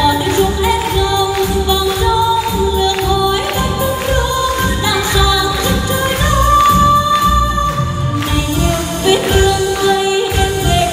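Female vocalist singing a Vietnamese song in the Nghệ Tĩnh folk style, with long held notes over an amplified backing track with a steady beat.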